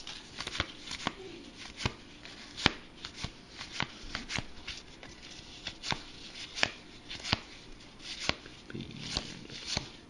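Baseball trading cards being flipped through one at a time by hand, each card giving a short, sharp snap at an uneven pace of about one or two a second.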